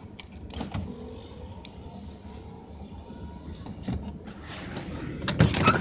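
Engine of a 1995 Ford F250 flatbed pickup running and revving while it spins donuts: a low rumble, with a pitch that rises from about one to three seconds in. A few knocks near the end.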